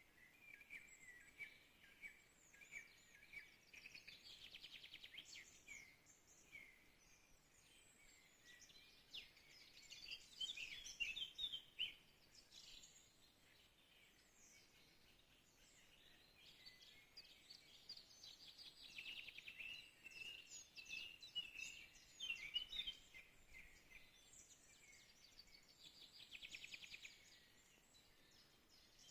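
Songbirds singing: faint, repeated phrases of quick chirps and fast trills, several overlapping, with pauses between bursts.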